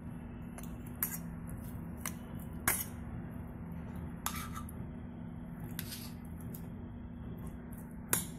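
A steel spoon clinking against a stainless-steel mixer-grinder jar and cooker as boiled dal and mince are scooped in: about half a dozen sharp, separate clinks, over a steady low hum.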